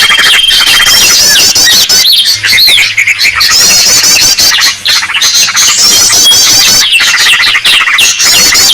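Loud, dense chorus of many small birds' chirps, squawks and rapid trills overlapping without pause: a bird-lure (pikat) call recording meant to draw wild birds in.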